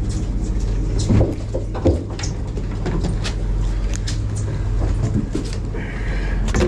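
Steady low machinery hum of a fishing boat, with scattered knocks and clunks on deck; two louder thumps come about one and two seconds in.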